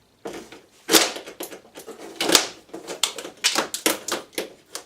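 Plastic housing of a wall-mounted fire alarm switch being struck and wrenched apart: a quick, irregular run of sharp clacks and cracks. The two loudest knocks come about one second and a little over two seconds in.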